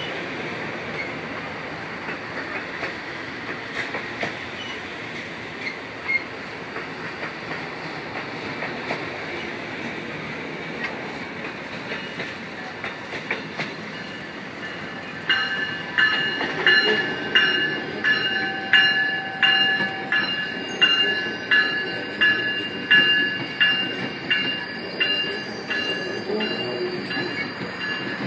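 Amtrak Superliner passenger cars rolling slowly past at close range: a steady rumble of wheels on rail with scattered clicks. From about halfway through, a metallic ringing strikes over and over, about twice a second.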